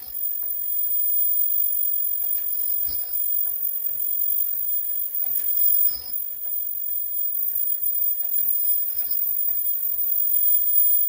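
Automatic face mask making machine running. A steady high-pitched whine plays under a repeating cycle about every three seconds, each cycle a short high beep-like tone with a low knock as the station works.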